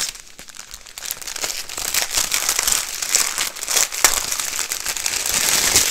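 Clear plastic packaging around packets of diamond-painting drills crinkling and crackling as it is handled and turned over in the hands. It is quieter for about the first second, then a steady, dense crinkle.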